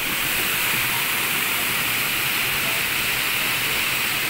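Water cascading over stone steps and spilling into a pool: a steady rushing and splashing.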